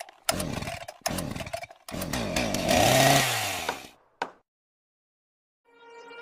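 A chainsaw revving in three bursts, the pitch rising and falling in each. The third burst is the longest and ends about four seconds in, followed by a single click. Music begins to fade in near the end.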